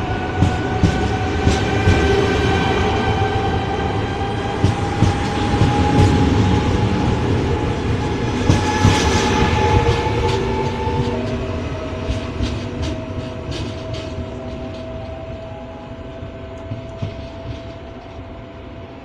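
A pair of coupled Z26500 (TER 2N NG) double-deck electric multiple units pulling away from the platform. Wheels click over the rail joints under a steady motor whine that rises slowly in pitch as the train gathers speed. The sound fades over the last several seconds as the train draws away.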